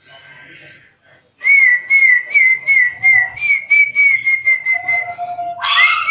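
A bird whistling a rapid run of short, hooked notes, about three a second, each with a sharp click, starting about a second and a half in. Near the end a louder call with rising and falling notes breaks in.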